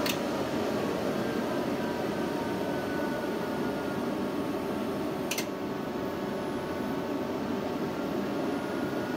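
EG4 6500EX-48 inverter running with a steady fan noise and a faint whine, and a single sharp click about five seconds in, as the inverter drops out of grid-bypass mode onto battery and switches back a few seconds later.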